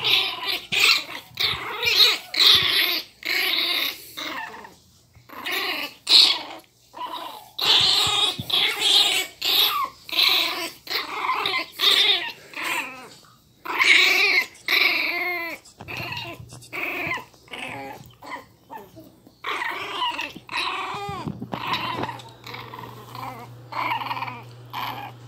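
Miniature pinscher puppies growling and barking in rough play over a cloth toy, short calls coming in quick succession, some sliding down in pitch.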